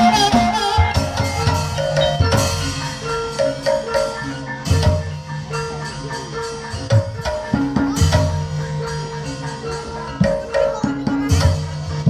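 Live gamelan accompaniment for an ebeg horse trance dance: a repeating melody of short notes on struck mallet instruments over a drum. Sharp crashes come about every two to three seconds.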